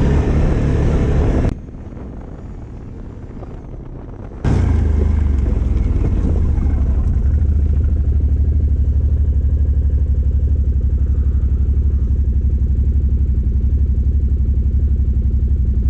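ATV engine, louder for the first second and a half, then quieter, then from about four and a half seconds in running steadily at idle with an even, fast beat.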